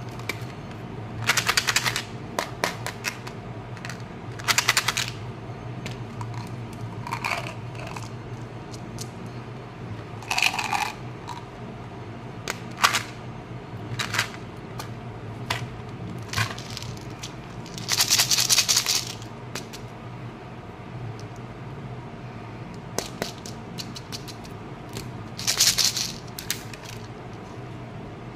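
Plastic candy containers and toys being picked up and handled, rattling and clicking in short bursts every few seconds, the longest and loudest about two-thirds of the way through. A steady low hum runs underneath.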